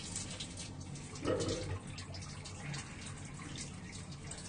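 Water running and splashing steadily in a small tiled restroom, with a short louder sound just over a second in.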